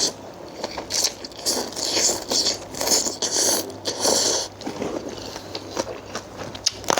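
A person chewing and crunching food close to the microphone, most likely crisp raw eggplant eaten with the salad: irregular crisp crunches mixed with wet mouth sounds.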